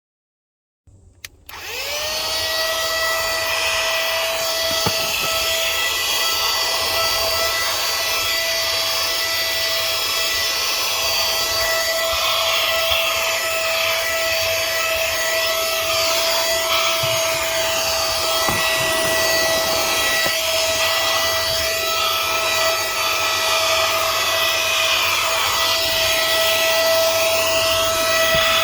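Joas JVC-2010 cordless handheld car vacuum switched on about a second in. Its motor spins up with a rising whine, then runs steadily, a high whine over rushing air.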